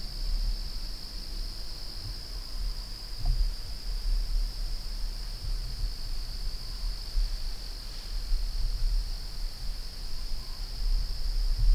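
Crickets singing in a steady, unbroken high-pitched chorus, over a low rumble with a few soft bumps on the microphone.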